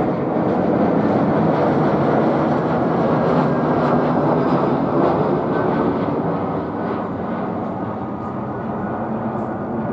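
Airbus A320-214's CFM56 turbofan engines and airframe passing low overhead on approach with landing gear down: a loud, steady jet roar that eases off a little in the second half as the aircraft moves away.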